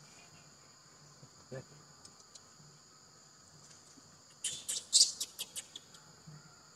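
Steady high insect drone of crickets or cicadas. From about 4.5 to 6 s a loud burst of sharp rustling clicks breaks in, as a monkey's tail and leaves brush close to the microphone.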